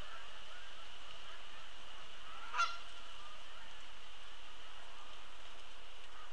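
A flock of Canada geese honking in flight: scattered faint honks, with one louder honk about two and a half seconds in.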